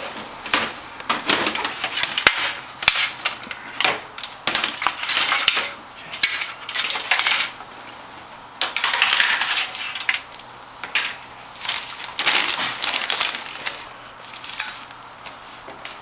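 A steel PC tower case being moved and handled: irregular metal clinks, rattles and scraping in short bursts with brief pauses between them.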